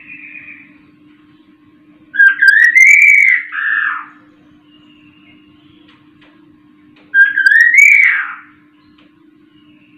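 A caged poksay (laughingthrush) whistling two loud phrases that rise and fall in pitch, about two seconds in and again about seven seconds in, each lasting over a second, with a faint short call at the start. A faint steady hum runs underneath.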